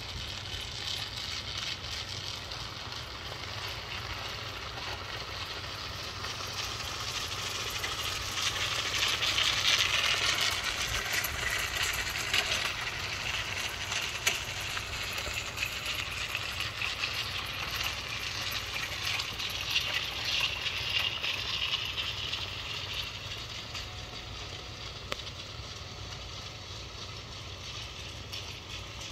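Homemade tracked robot on snowblower tracks, driven by wheelchair motors, towing a spiked lawn aerator roller over bare soil: a steady motor whine with the clatter of the tracks and aerator spikes. It grows louder through the middle as the machine comes closer, then eases off near the end.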